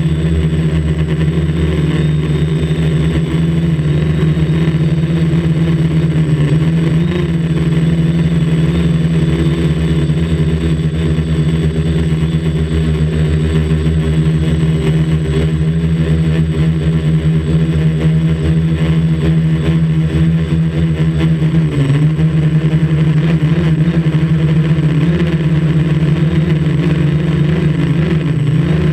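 A quadcopter's motors and propellers buzz steadily in flight, heard close up from a camera on board. The pitch wavers slightly and dips briefly about 22 seconds in.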